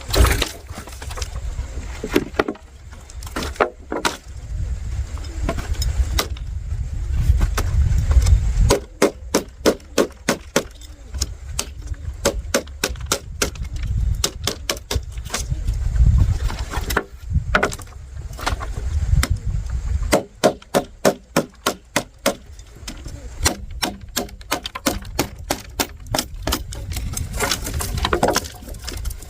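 Wood or bamboo being struck over and over with a hand tool: runs of sharp knocks at about three to four a second, with a low rumble in the pauses between the runs.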